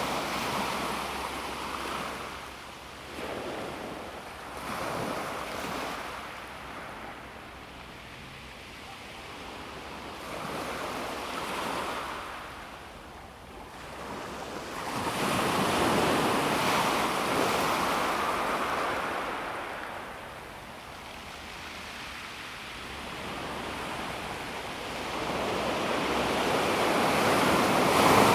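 Calm sea waves washing onto a pebble beach, swelling and falling back in slow surges, with the loudest waves about halfway through and again near the end.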